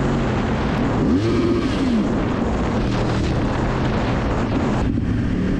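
Sport motorcycle's engine running on the move, under a steady rush of wind noise; about a second in the engine revs up and falls back.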